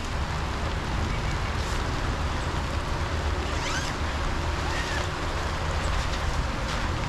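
Steady wash of rain and wind outdoors, with a low rumble of wind buffeting the microphone.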